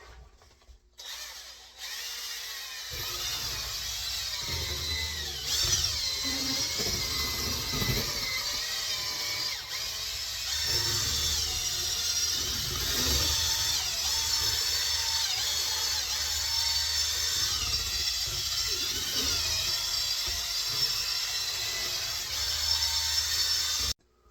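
Electric drill spinning a 12-gauge flex hone inside a shotgun barrel to scour out rust, the motor's pitch wavering up and down as it runs. It starts about two seconds in and stops suddenly near the end.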